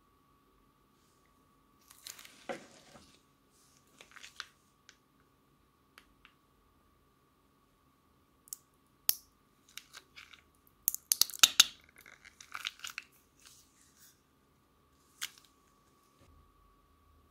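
Plastic piping bag crinkling and crackling in irregular bursts as slime is squeezed out of it, with a few sharp clicks; the loudest cluster comes a little past the middle. A faint steady tone hums underneath.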